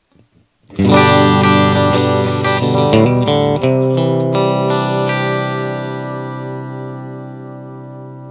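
Electric guitar, a MUSI Capricorn Fusion, played through an amp with some drive and effects. After a moment of near silence it plays a quick run of notes, then strikes a chord about four seconds in that rings on and slowly fades.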